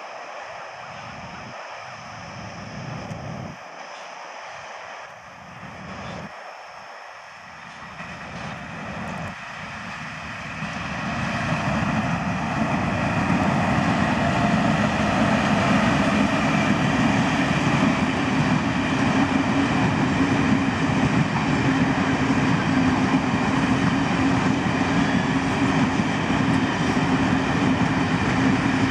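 Electric express train (WAP-4 locomotive with its coaches) approaching and passing at speed. At first it is a faint, uneven rumble. About ten seconds in it swells to a loud, steady rush of the coaches running past on the rails.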